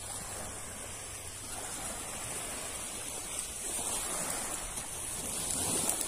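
Small wind-driven lake waves lapping against the grassy shore, with wind noise; the wash grows a little louder about four seconds in.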